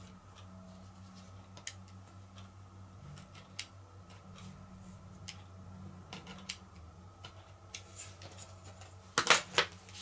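Craft knife cutting small notches in a scrap of faux leather along a metal ruler on a cutting mat: scattered short clicks and scrapes, with a louder cluster of clacks about nine seconds in, over a faint steady hum.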